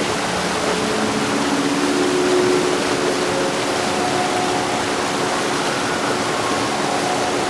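Heavy rain falling steadily, a dense, even hiss with no thunder, over a faint steady hum.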